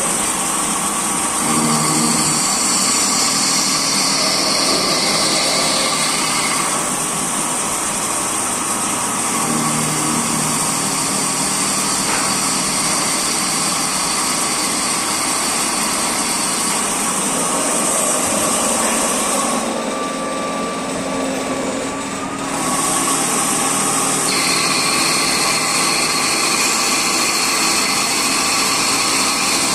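CNC machine running while it cuts a 1/2-inch BSP thread in a cast part: a steady high-pitched machine whine with several tones that shift as the machine works. The highest whine drops out for a few seconds about two-thirds of the way through, then returns.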